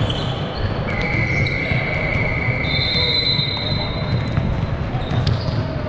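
Basketball being dribbled and bounced on an indoor court during a game, over a steady hall din. Two long, high squeals are also heard.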